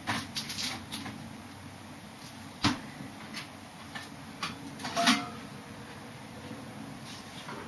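Scattered light clicks and taps, about a dozen in all, the sharpest about two and a half seconds in, then a quiet stretch from about five seconds on.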